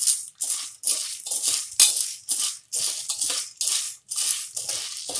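Dry popcorn kernels rattling and scraping against an aluminium pressure cooker as a spatula stirs them through hot oil. The strokes come in short bursts about twice a second. The kernels are being heated before any have popped.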